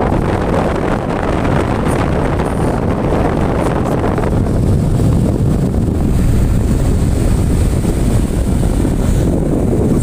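Table fan running steadily at full speed, its motor freshly oiled and no longer slow. The airflow buffets the microphone with a loud, steady rumble.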